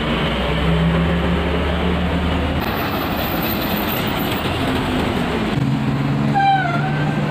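Diesel engines of large intercity buses driving past close by: a steady low engine drone with tyre noise, changing in character twice as different buses pass. Near the end a brief wavering tone dips and rises.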